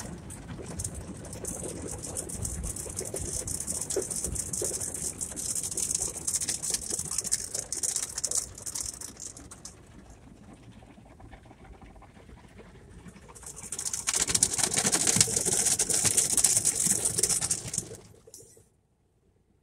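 Automatic car wash heard from inside the car: water spray and spinning cloth brushes hitting the windows and body, a steady high hiss. It eases off about ten seconds in, comes back louder a few seconds later, then cuts off suddenly near the end.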